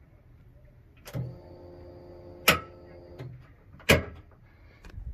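A click, then an in-tank electric fuel pump humming steadily for about two seconds as the car powers up through its new battery cut-off switch. Two sharp clicks follow, a second and a half apart.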